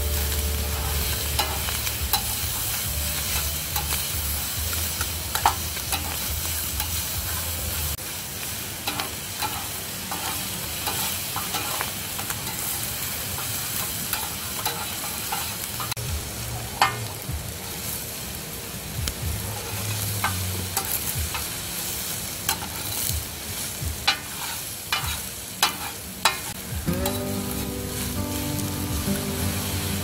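Fried rice sizzling on a hot round black griddle pan while metal spatulas stir, chop and scrape it, with many sharp clicks as the spatula edges strike the pan.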